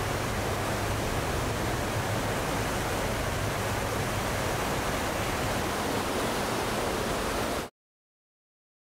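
Steady rushing of wind and churning sea on a cruise ship's open deck, with a low rumble underneath. It cuts off suddenly near the end into silence.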